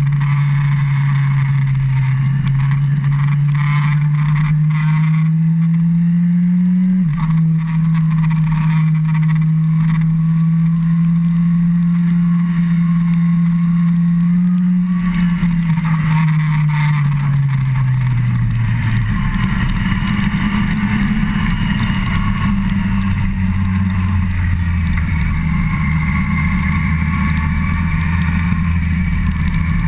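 Yamaha FZ1's inline-four engine under way, its pitch rising steadily, dropping sharply as it shifts up about seven seconds in, then holding and easing off between about 15 and 19 seconds as the bike slows. Steady wind rush runs under the engine throughout.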